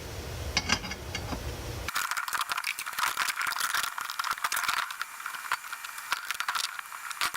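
Small metal drum-brake parts and hand tools clicking and rattling as they are handled, in quick irregular clicks that grow busier about two seconds in.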